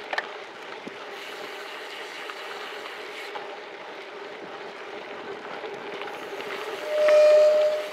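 Bike tyres rolling fast downhill with a steady rush of wind and road noise. About seven seconds in, a loud, steady squeal lasting under a second, as a bicycle disc brake squeals under braking into a bend.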